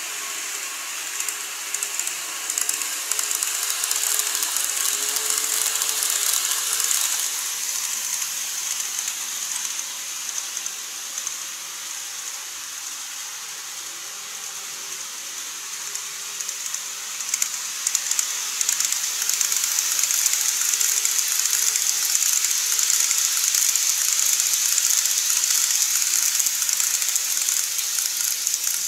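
KATO N-gauge model trains running on plastic track: a steady rattling rush of small wheels and motor with a faint hum. It swells twice as a train runs close by, first a 285 series Sunrise Express model, then, near the end, an E217 series model.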